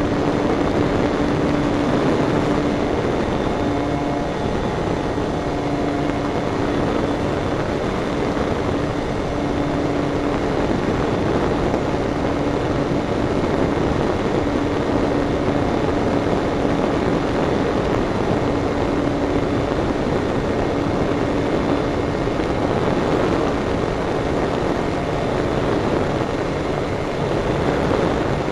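Steady rush of air with a propeller hum that drops out and comes back several times: a radio-controlled electric motor glider in flight.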